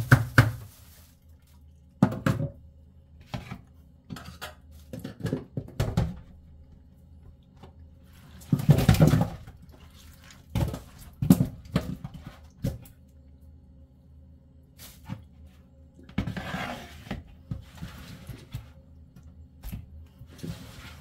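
Freshly caught whole fish being handled in a plastic tub at a kitchen sink: irregular wet slaps, knocks and clatters of fish against fish and the tub, with two longer, louder bursts about nine and sixteen seconds in.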